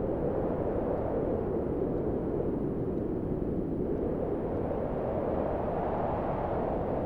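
Processed storm wind sound effect: a steady, low rushing wind whose hollow tone drifts slightly higher near the end.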